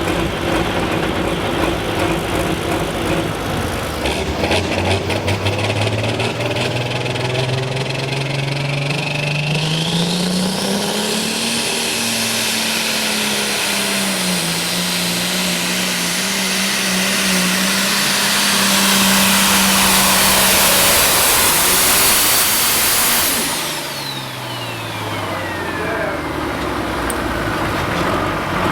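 Modified farm pulling tractor's engine revving up at the start of a pull, held at high revs under load with a loud rushing hiss for about ten seconds, then letting off near the end as the revs and a high whistle fall away.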